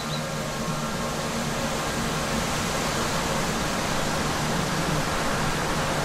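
Steady rushing wind noise, growing slightly louder.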